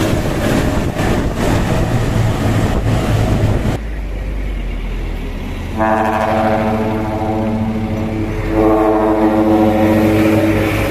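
Diesel dump truck running, then its trumpet air horn blowing two long, steady, multi-note blasts. The first blast starts about six seconds in and the second follows after a short break.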